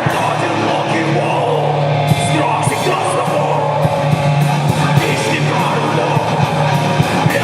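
Heavy rock music with guitar, a steady drum beat with regular cymbal hits, and sung or yelled vocals.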